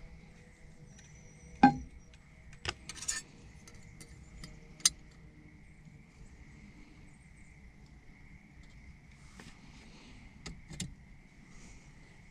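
Metal hand tools and bolts clinking and knocking during a steering wheel hub install: one sharp knock about a second and a half in, a short rattle around three seconds, and a few lighter clicks later, over a faint steady high whine.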